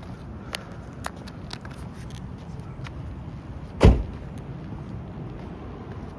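A steady low rumble with a single heavy thump almost four seconds in, like a car door being shut.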